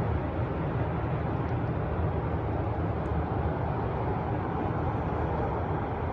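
Jet aircraft engines running: a steady deep rumble with a broad hiss over it, swelling slightly in the middle and easing near the end.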